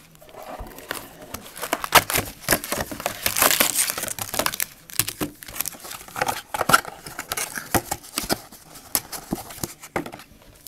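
Plastic wrapping of a trading-card box and pack crinkling and tearing open, an irregular crackle with a louder rustling burst a few seconds in.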